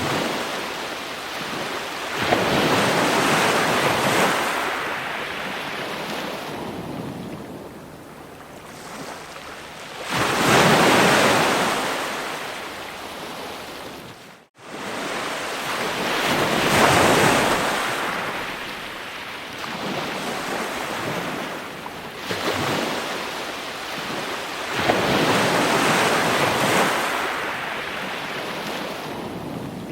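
Ocean waves breaking on shore: a hissing wash of surf that swells up and ebbs away every few seconds, with the loudest waves about a third and halfway through. The sound cuts out for an instant about halfway through.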